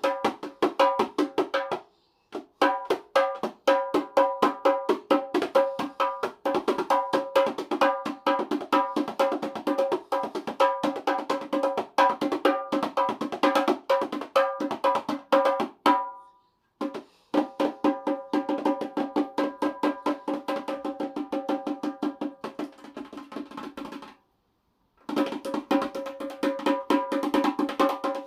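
Dikir barat rebana frame drums with pauh-wood shells, struck by hand in a fast, continuous rhythm of ringing strokes with a clear drum pitch. Playing stops briefly about 2 seconds, 16 seconds and 24 seconds in, then resumes.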